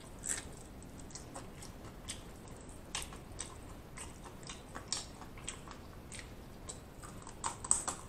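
A person chewing and nibbling a small piece of fried meat held at the lips, close to the microphone: irregular wet mouth clicks and crisp crunches, with a louder cluster near the end.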